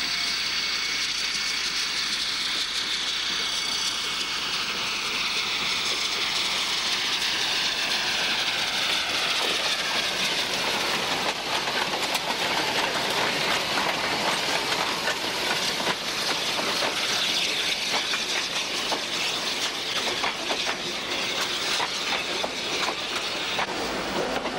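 Metre-gauge Mallet steam locomotive and its carriages rolling slowly past, with steam hissing and the wheels clicking over the rail joints, the clicks growing denser about halfway through. A faint squeal falls in pitch during the first half.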